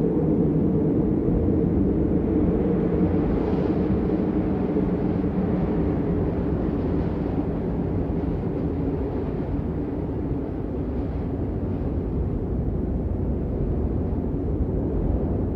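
Steady, muffled rain noise, deep and even, with little hiss at the top.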